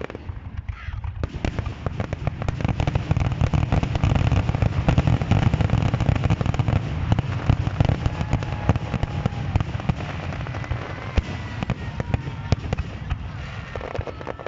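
Fireworks display: many shells bursting and crackling in quick, irregular succession over a deep rumble. It builds up about a second in and is densest in the middle.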